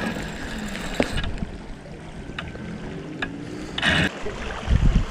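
Spinning reel being cranked on a fishing rod to retrieve line against a heavy load, with handling clicks and knocks. Wind buffets the microphone throughout.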